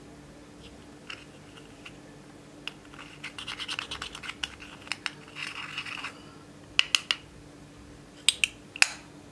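A small metal spatula scraping pressed eyeshadow out of its compact, a gritty scratching for a few seconds, then a few sharp clicks near the end.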